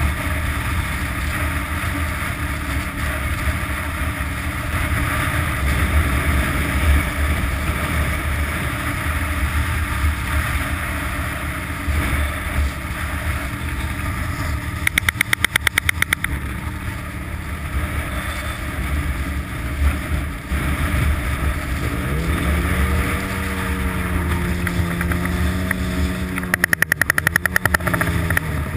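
Strong wind buffeting a helmet-mounted camera's microphone while riding a snowmobile. The snowmobile's engine comes through clearly in the last several seconds, its pitch rising and dipping with the throttle. Twice, about halfway through and near the end, a rapid rattle of clicks lasts a second or so.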